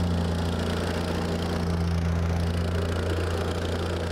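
Gas-powered plate compactor running steadily at working throttle, its small engine and vibrating plate compacting a gravel base of 3/4-inch stone and stone dust.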